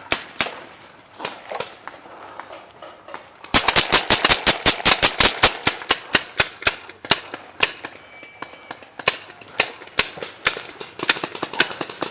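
Paintball markers firing: scattered single pops, then about three and a half seconds in a rapid string of several shots a second lasting some three seconds, then scattered shots again.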